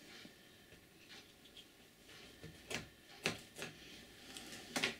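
Faint rubbing and a few sharp knocks on a wooden cutting board as a fried sausage is cut in half with a knife; the loudest knock comes near the end.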